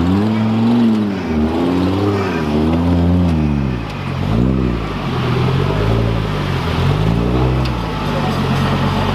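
Off-road competition vehicle's engine revving up and down again and again, in quick swells about once a second.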